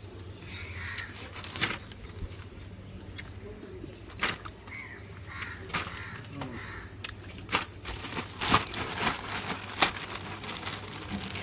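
Scattered light knocks and clicks of kitchen handling over a faint steady hum, with a few faint crow caws in the background.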